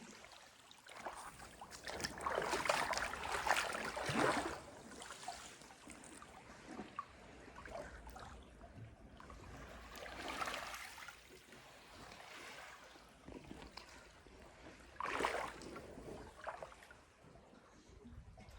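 Sea water lapping and splashing, with three swells of splashing: a long one about two to four seconds in, a softer one around ten seconds and a short one near fifteen seconds.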